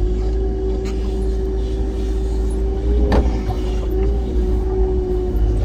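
Wheel loader running under work, heard from inside the cab: a low engine rumble with a steady whine on top, and a single sharp knock about three seconds in.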